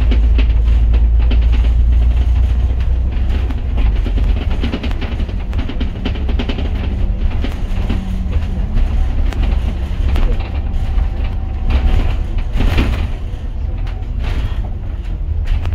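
Cabin noise of a moving double-decker bus: a steady low engine and road rumble, with scattered rattles and knocks.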